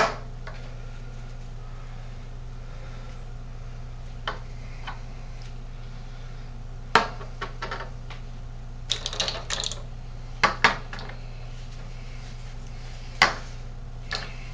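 Scattered sharp clicks and light knocks of small hard objects, such as shotgun shells and reloading tools, being handled and set down on a bench. The clicks come singly at first, then in a quick cluster about seven to ten seconds in, over a steady low hum.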